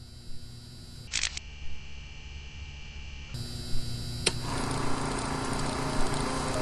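Film projector starting up: a few sharp mechanical clicks, then a steady running noise with a low hum that grows louder, widening about three seconds in.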